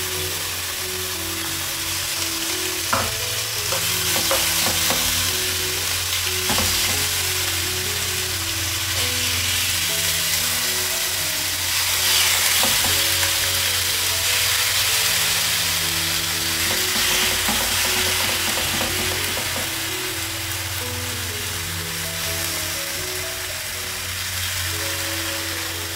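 Thin slices of marinated beef sizzling as they fry in a hot nonstick frying pan with garlic, with sharp clicks of tongs against the pan now and then as the pieces are laid in and turned.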